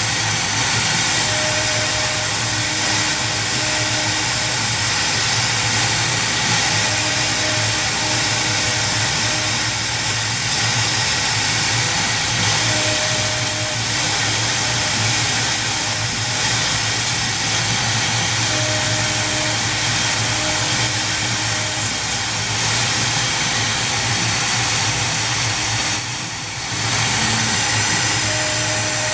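Momus CNC X2S router spindle running at 18,000 RPM while a 0.063-inch end mill cuts plywood: a steady, loud machine noise with a low hum underneath and higher tones that come and go as the machine moves. Near the end there is a click and a brief dip in the noise.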